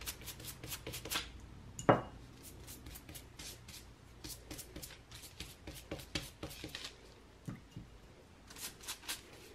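A pastry brush dabbing and swiping egg wash onto wonton wrappers on parchment paper: a run of short, irregular brushing and paper-rustling sounds, with one louder knock about two seconds in.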